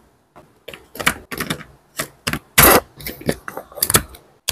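Hard plastic toy-gun parts clicking and knocking irregularly as they are handled and screwed together with a small screwdriver. The loudest knock comes about two and a half seconds in.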